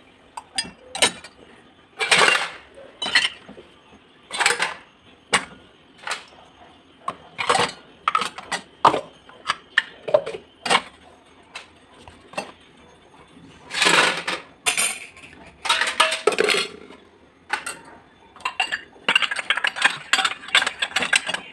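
Washed kitchen pots, plates and utensils being stacked and put away by hand, clinking and clattering irregularly, with a few longer scraping clatters and a quick run of clinks near the end.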